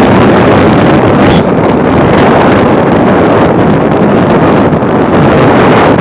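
Loud, steady wind buffeting the microphone of a moving motorbike, an even rushing noise with no clear engine note.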